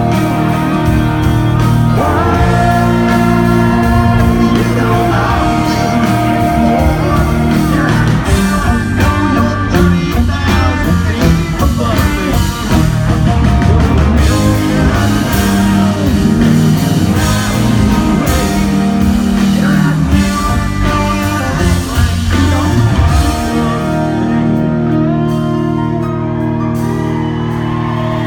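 Live country band performing through a loud PA: male lead vocal over electric guitars, bass and drums.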